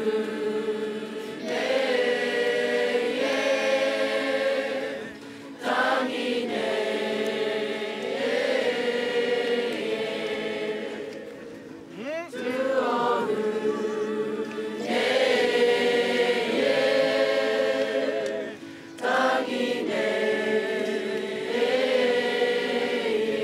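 A Māori kapa haka group singing together, the voices holding long sustained notes in phrases broken by short pauses about every six or seven seconds.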